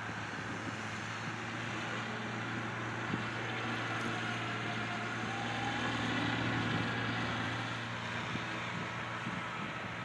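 John Deere 6210R tractor's 6.8-litre six-cylinder turbo diesel running steadily while it works a five-furrow reversible plough, getting a little louder about six seconds in.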